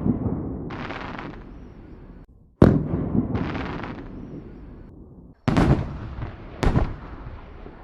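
Fireworks sound effect: a loud bang dying away into a rumble, then a crackling hiss about a second in. Another bang comes near three seconds, followed by more crackle, and two further bangs close together near the end.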